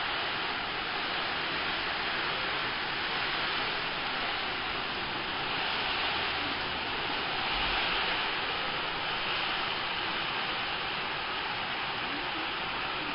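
Steady rain falling, a constant even hiss that grows a little louder around the middle.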